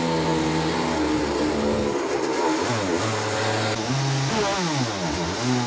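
Racing kart's two-stroke engine running on the stand, held steady at first and then blipped, its pitch rising and falling several times in quick succession in the second half.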